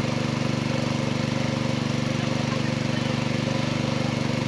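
A small engine running steadily at constant speed, with a fast, even throb.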